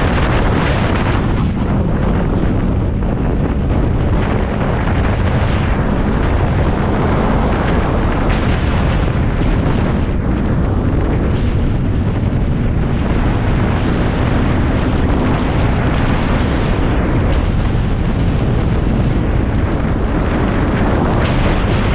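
Snowmobile running steadily at speed along a trail: a constant engine drone and track rumble, heavily mixed with wind buffeting the microphone.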